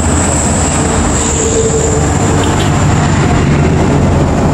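Road traffic passing close on a highway: a truck, cars and a coach bus going by, with a steady low engine rumble and tyre noise. A thin, high-pitched whine holds steady throughout.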